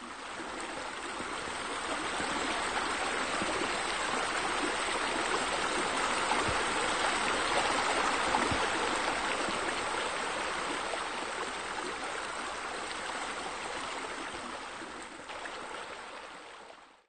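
Flowing water, a steady even rush like a stream or spilling water feature, fading out near the end.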